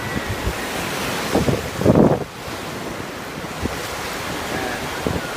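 Waves breaking on the beach, with wind buffeting the microphone. A louder surge comes about two seconds in.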